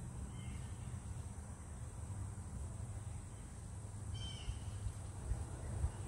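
A bird calling outdoors: a faint short call near the start and a clearer short call about four seconds in, over a steady low rumble.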